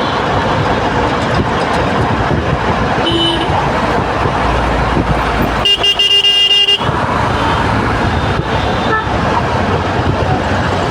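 Congested road traffic running steadily, with a short horn toot about three seconds in and a loud vehicle horn blast lasting about a second around the middle.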